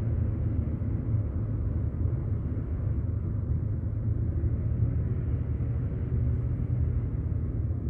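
Steady low engine rumble from a distant motor, running evenly with no change in pitch.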